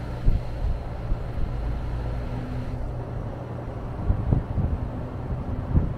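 Trane outdoor air-conditioning condensing unit running: a steady hum of the compressor and condenser fan. Gusts of wind buffet the microphone several times, with low thumps near the start and again about four and six seconds in.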